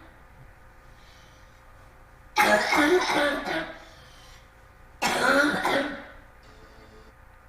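Two loud, harsh coughing bouts, each lasting a little over a second, the second about two and a half seconds after the first: the chronic habit cough, a cough with no physical cause.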